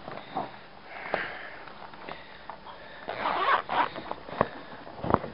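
Rubbish being rummaged through by hand: irregular rustling and scraping, with a couple of sharp knocks near the end.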